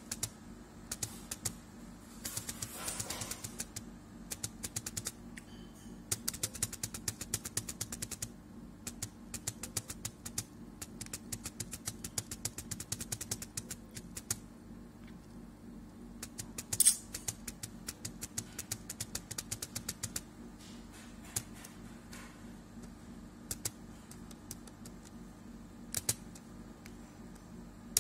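Computer mouse clicking in quick runs of many clicks, with pauses and scattered single clicks, as an on-screen list is scrolled through. One click about halfway through is louder than the rest. A steady low hum lies underneath.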